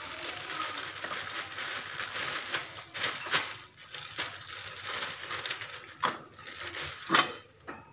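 Rabbit and cat shuffling about on a wire cage floor: scattered clicks and knocks over a continuous crackling rustle, the loudest knock near the end.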